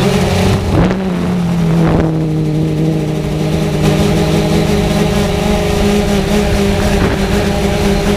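Multirotor drone's electric motors and propellers humming: several steady tones that dip in pitch briefly near the start and then hold level.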